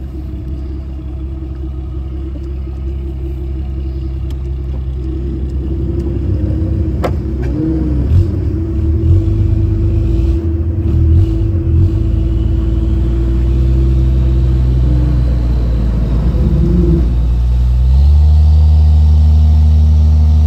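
Engine running under way with a steady low rumble that grows gradually louder, then steps up abruptly to a louder, steadier run near the end.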